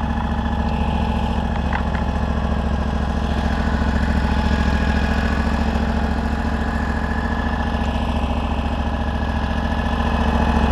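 Off-road buggy's small petrol engine idling steadily.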